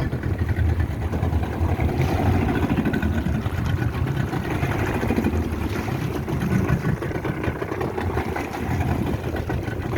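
Motorboat engine running steadily, a low rumble with a rushing haze over it.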